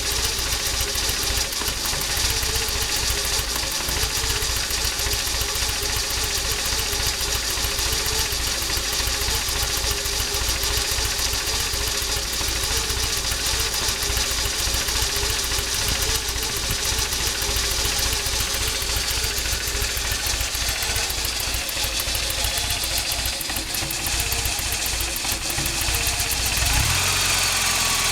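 Toyota 22RE 2.4-litre four-cylinder engine idling slow and rough when warm, with an uneven, pulsing beat: the idle fault that sometimes lets it die at a stop. Near the end the engine note changes and runs steadier and a little louder.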